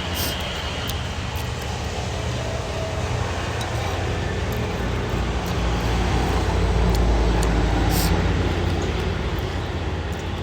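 Low rumble of road traffic that swells as a vehicle goes by midway, then eases off.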